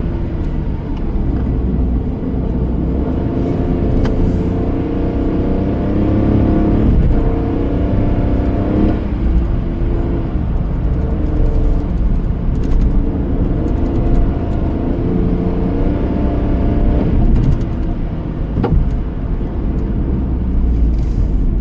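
Passenger car driving, a steady low rumble of engine and road noise with the engine's pitch stepping up and down as speed changes. A single sharp click sounds near the end.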